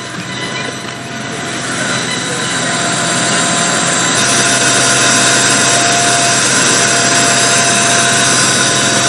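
Passenger train at the platform, its diesel running noise swelling over the first few seconds and then holding steady, with a faint steady whine above it.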